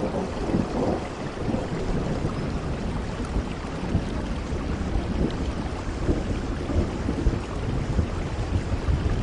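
Steady heavy rain: a dense, even hiss of rainfall with many individual drops pattering and a low rumble underneath.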